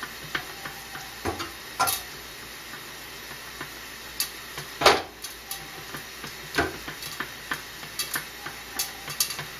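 Popcorn kernels popping in hot oil inside a covered pot: scattered single pops over a low sizzle, coming more often toward the end as the popping gets going. One louder knock about five seconds in.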